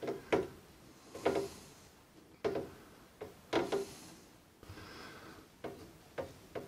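Hand screwdriver backing out a small retaining screw from the metal faceplate of an X-USB expansion card in a Behringer X32 mixer: a series of short, irregular clicks and light scrapes as the screw is turned and the driver re-gripped.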